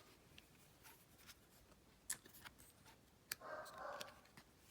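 Near silence with a few faint clicks of cards being handled, and a faint, muffled dog bark about three and a half seconds in.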